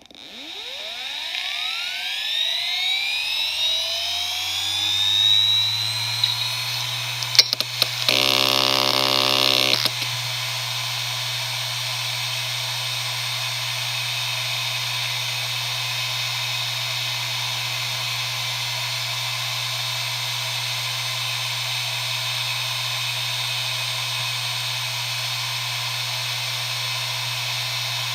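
IBM Deskstar 120GXP 7200 RPM IDE hard drive spinning up from rest: a rising whine over the first few seconds that settles into a steady whine and hum. About seven seconds in come a few head clicks and a two-second buzz of head seeks, then the healthy drive runs steadily at full speed.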